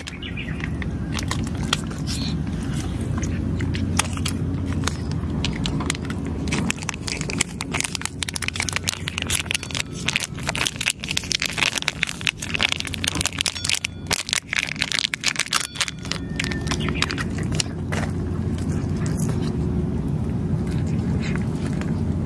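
A cat crunching dry food, a dense run of quick crackling clicks that is thickest in the middle, over a steady low hum that fades out midway and returns later.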